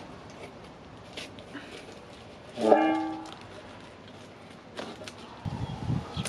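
Scissors snipping and crinkly handling of foil-faced foam pipe insulation, heard as scattered small clicks and rustles. About halfway through, a louder pitched tone of unclear source sounds for about half a second.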